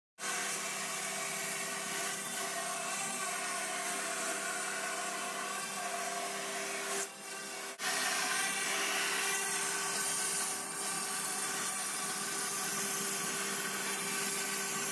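Roland MDX-540 CNC milling machine cutting a foam block: a steady spindle whine over the hiss of the cutter chewing foam, with a brief dip about seven seconds in.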